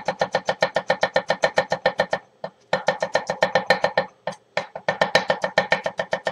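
Chef's knife rapidly mincing garlic on a wooden butcher-block cutting board, about eight chops a second, each chop a sharp knock that rings at the same pitch, with two brief pauses.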